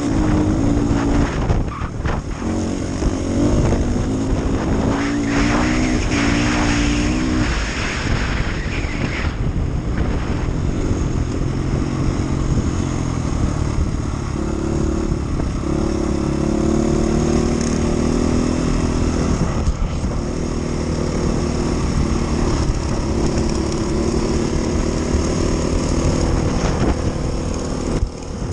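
Rally enduro motorcycle engine heard from the rider's own bike, running hard on a loose gravel road. The revs change pitch several times, over a steady rushing noise.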